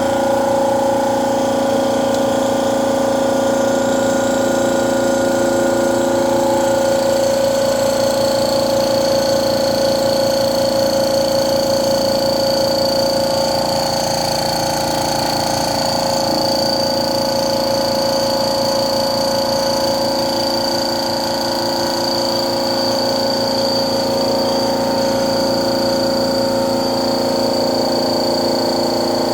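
Tuxing two-cylinder 4500 psi high-pressure air compressor, water-cooled, running steadily with a constant hum and a steady high whine.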